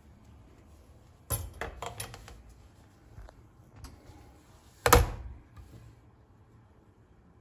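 Kitchen clatter as a hot aluminium baking tray of şekerpare is taken from the oven and set down on the stovetop: a few metal knocks and rattles, then one loud bang about five seconds in.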